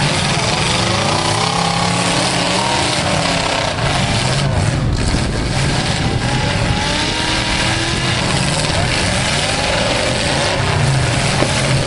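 Several demolition derby cars' engines running and revving, their pitches rising and falling over one another in a loud, continuous racket.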